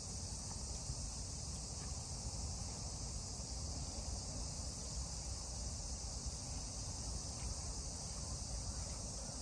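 Steady high-pitched chirring of crickets in the grass, with a low rumble underneath.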